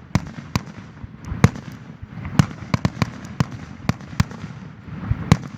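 Fireworks going off: a string of about a dozen sharp bangs at irregular intervals, some close together, over a steady background hiss.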